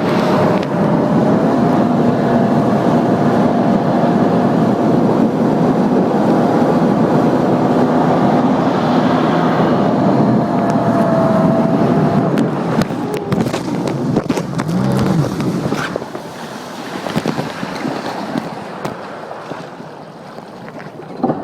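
Jet ski engine running hard at a steady pitch over a rush of water and wind noise, then throttling back about halfway through, so the engine note drops and the sound grows quieter.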